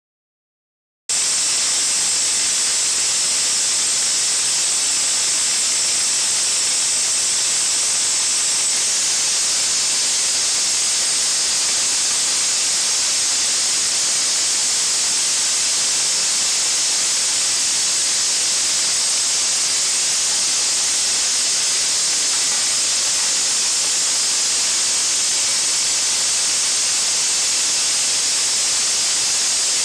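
Vibratory bowl feeder running with tear-gas cartridge parts in its steel bowl: a steady, high hiss that starts suddenly about a second in and holds evenly.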